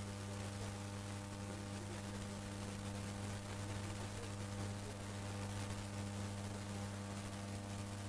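Steady low electrical hum with a layer of hiss, unchanging throughout: mains hum on an old recording's soundtrack.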